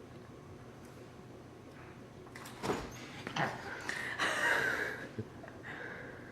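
Refrigerator door being pulled open: two short knocks, then a couple of seconds of rattling and rustle.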